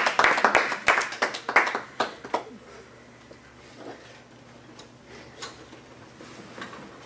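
A small group clapping, thinning out and stopping about two and a half seconds in, then quiet room tone with a few faint clicks.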